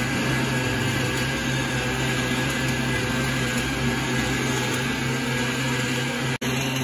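Automatic wire-fed arc welder running a continuous weld in a deep groove between a hydraulic cylinder rod and its rod end: a steady buzzing hiss from the arc. It cuts out for an instant near the end.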